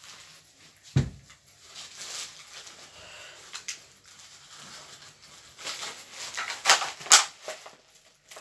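Toy packaging being handled and opened: a knock about a second in, then scattered rustling and crinkling, with a few louder crinkles near the end.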